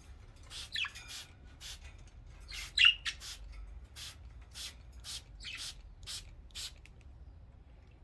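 Budgies chirping and squawking, with a string of short hissing bursts about every half second, typical of a hand spray bottle's squirts during a shower.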